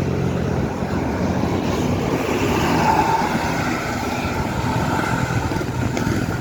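Road traffic passing close by: a heavy vehicle's engine hum and tyre noise, slightly louder about three seconds in. No musical horn stands out.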